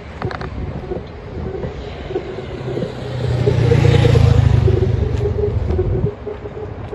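Car driving on a city road: steady engine and road rumble. It swells louder for about two seconds midway, then settles again.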